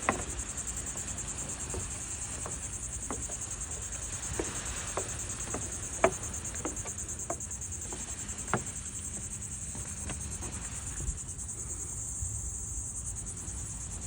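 Steady high-pitched chorus of insects trilling with a fast even pulse, with scattered light clicks, the sharpest about six seconds in.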